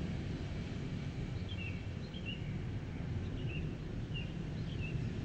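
Outdoor background noise with a steady low rumble, and a small bird giving short, downward chirps, repeated every half second or so from about a second and a half in.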